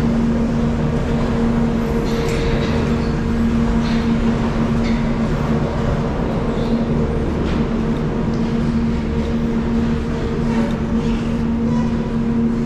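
Gondola lift terminal machinery running with a steady, loud hum over a low rumble, with a few faint clicks and knocks.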